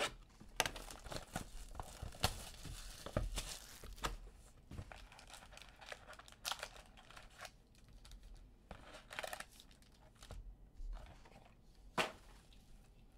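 Plastic wrap being torn off a trading-card box, then foil card packs crinkling and clicking as they are taken out and laid down. The tearing and rustling is densest in the first few seconds, with a sharp tap about twelve seconds in.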